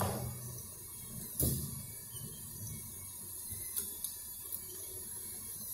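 Small electric motor of a metal construction-kit model vehicle running at low speed, a faint steady whir with a few light knocks.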